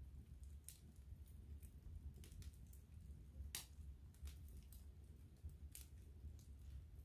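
Wood fire burning in a cast-iron fireplace grate, crackling faintly with scattered sharp pops over a low steady rumble. The loudest pop comes about halfway through.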